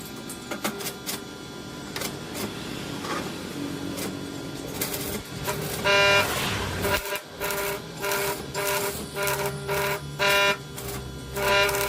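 A horn sounds in short, repeated toots, beginning about halfway through.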